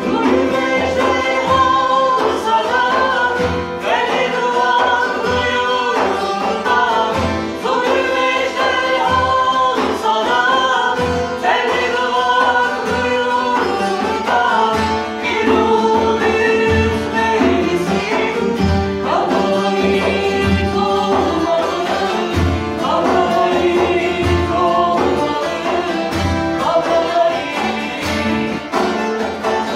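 Live folk song: mixed male and female voices sing together over strummed and plucked bağlamas and an acoustic guitar, with hand-struck percussion thumping out the beat.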